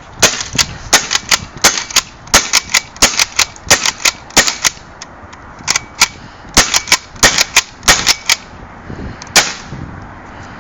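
APS RAM pump-action paintball shotgun being racked and fired in quick succession: sharp cracks and clacks of shots and pump strokes, in two fast runs with a short pause about five seconds in, and one last shot near the end.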